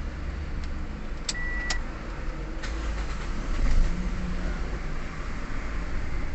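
Toyota Vios engine running with a steady low rumble, with a few sharp clicks and a short high-pitched tone about a second in. The car starts hard and idles low, which the mechanic puts down to a weak fuel pump.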